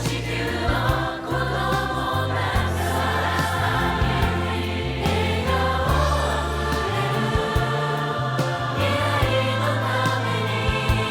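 Background music: a song with sung voices over a steady bass line.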